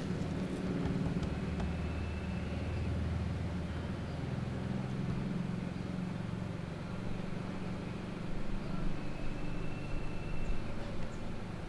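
A steady low engine rumble, like a motor vehicle running nearby, with uneven louder bumps in the last few seconds.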